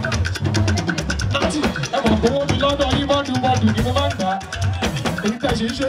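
Loud party music with busy drums and percussion, and a voice over it through a microphone.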